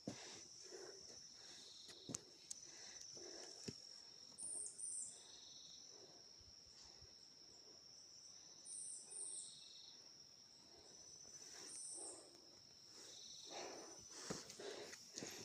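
Faint steady high-pitched drone of insects, with a few short high bird chirps, about four, scattered through it.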